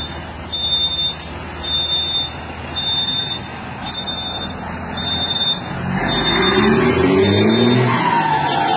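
Turbo-diesel truck engine under a repeating high beep, about one a second. About six seconds in the engine revs up, and near the end the whistle of its BorgWarner turbo, fitted with a comb insert ('pente') to make it sing, falls in pitch as the turbo spools down.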